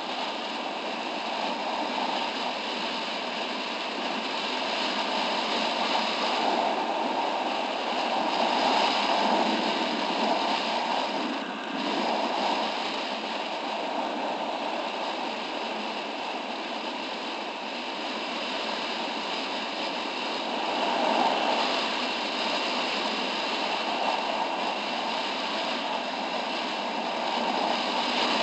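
Steady rush of wind over the camera microphone of a moving scooter at road speed, swelling and easing a little, with no distinct engine note standing out.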